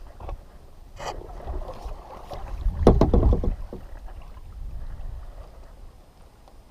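Knocks and bumps of handling on a kayak, loudest in a short cluster near the middle, over a low rumble.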